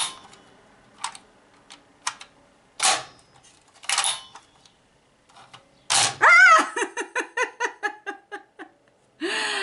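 Plastic teeth of a toy bulldog biting game clicking several times as they are pressed, then the dog's jaw snapping shut with a sharp click about six seconds in. A woman's burst of laughter follows.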